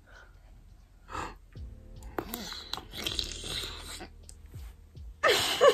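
Biting into a large whole sour pickle and chewing it, a wet crunching with small crackles. A voice starts near the end.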